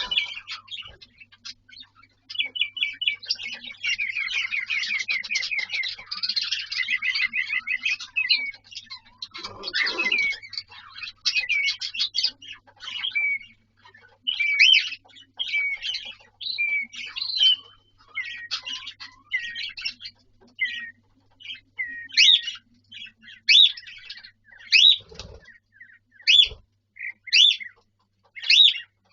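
Pet cockatiel whistling and chattering: a fast, dense warble for about the first twelve seconds, then separate rising whistled notes about one a second. A few dull knocks come in between.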